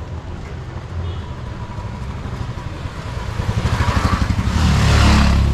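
Road traffic: a motor vehicle's engine draws near and passes close by, loudest about five seconds in, over a steady low rumble of traffic.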